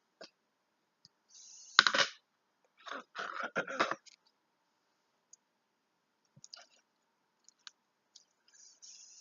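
Slime being poked and squeezed by fingers: sticky clicks and small crackling pops. They come in two dense clusters, at about two seconds and from about three to four seconds in, with scattered single clicks later.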